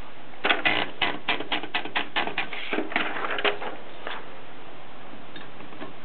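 Olympia SM3 manual typewriter's platen turned by its knob, a quick run of ratchet clicks, about four or five a second, lasting about three seconds, then a single click a moment later.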